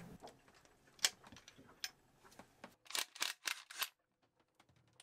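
Scattered metallic clicks of tools and bolts on a diesel engine's valve cover, then four short rasping bursts close together about three seconds in, as a cordless drill with a socket backs out the valve cover bolts.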